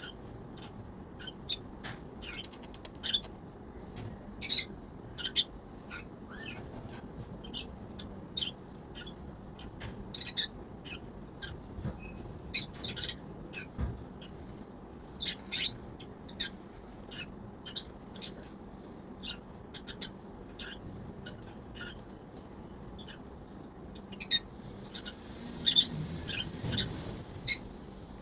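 A parrot making short, sharp clicks and squeaks at irregular intervals, about one or two a second, coming faster near the end.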